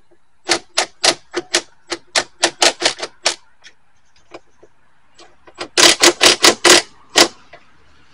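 Impact driver tightening the tow mirror's mounting nuts in short trigger taps: about ten sharp rattling hits over the first three seconds, then a louder, quicker run of hits around six to seven seconds in.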